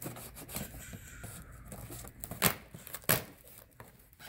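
Packing material being handled as records are unpacked from a shipping box: irregular rustling, crinkling and tearing of cardboard and plastic, with two louder sharp cracks about half a second apart in the middle.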